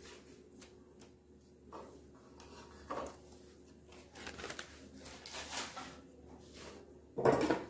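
Butter paper rustling and crinkling as it is peeled off a block of burfi and set aside, with soft handling sounds. A short knock about three seconds in, and a brief louder rustle near the end.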